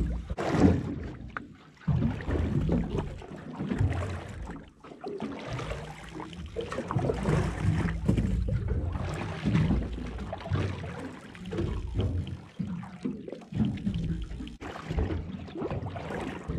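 Water lapping and slapping unevenly against the hull of a small aluminium fishing boat, with gusty wind noise. No engine is running.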